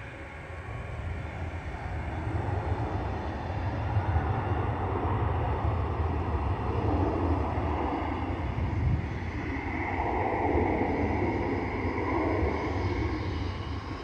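Jet engines of a Spirit Airlines Airbus A320neo running up as it rolls down the runway. They make a steady low rumble that builds over the first couple of seconds, with a brief higher whine near the ten-second mark.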